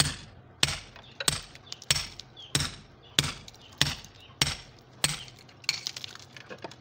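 Club hammer striking a steel cold chisel into a cement-rendered masonry wall, about ten sharp metallic blows at a steady pace of roughly one and a half a second. The wall is being chipped open by hand to make a hole.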